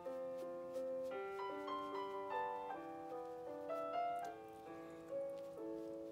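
Background piano music playing a melody over held chords.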